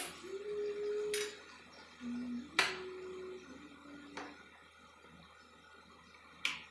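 A ladle clinking against a steel wok as a saucy stew is stirred: five sharp clinks spread through, with soft held tones between them that rise and step in pitch.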